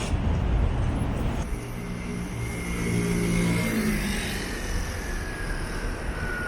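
Train running with a low rumble and an electric whine, the whine sliding slowly down in pitch as the train slows.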